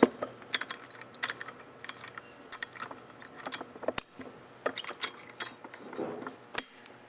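Irregular metallic clinks and clicks as the top of a Bel-Art micro-mill's grinding chamber is handled and fitted on by hand. There are two sharper knocks, about four seconds in and near the end.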